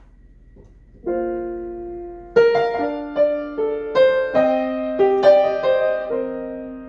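Piano introduction to a song: a chord struck about a second in and held, then a melody of single notes over it, about two or three a second.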